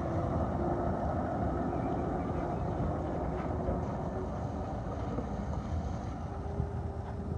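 A heavy truck's engine running as the truck drives slowly past over a rough, patched road surface.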